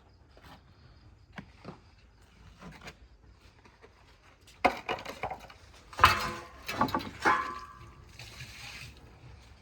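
Construction work: a few loud knocks and clatter past the middle, one of them leaving a brief ringing tone, among faint scattered clicks.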